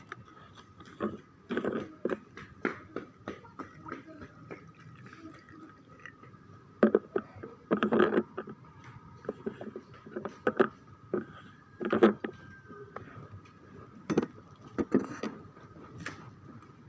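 Irregular clinks and knocks of glasses and bottles being handled while a jamu drink is poured out, with a faint steady high hum behind.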